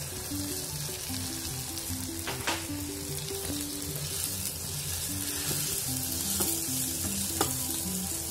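Corned tuna and tomato sauce sizzling in a frying pan as cooked spaghetti is added and stirred in, with a couple of sharp clicks of the spoon against the pan. A simple background melody plays under it.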